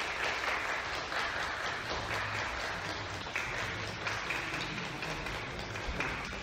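A crowd of people applauding steadily.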